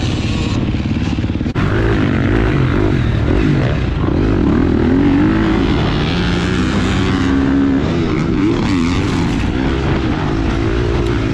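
Husqvarna FC four-stroke motocross bike engine revving hard and backing off again and again as it is ridden through the gears. There is a short break in the sound about a second and a half in.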